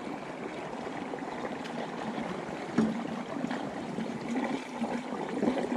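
Water flowing steadily as floodwater drains out of a pond through a channel.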